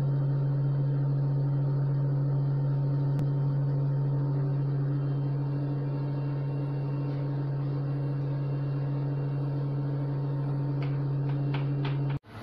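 A steady low hum, with a few faint clicks near the end, cutting off sharply at the end.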